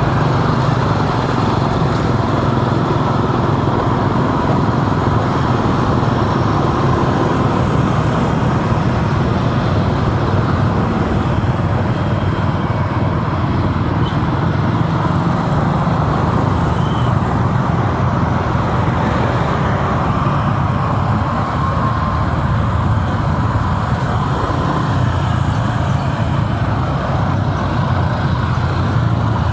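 Steady road and traffic noise while driving through city streets: a continuous low engine-and-tyre rumble with the passing hum of surrounding cars and motorbikes.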